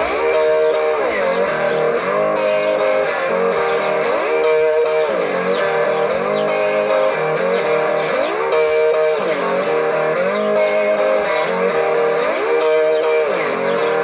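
Electric guitar played in an instrumental break between verses, with notes that glide down and back up in pitch about every two seconds.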